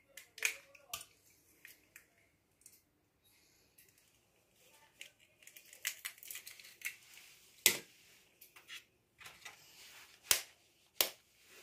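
Eggs being cracked open over a glass mixing bowl: a handful of sharp clicks and cracks of eggshell, the loudest about two-thirds of the way through.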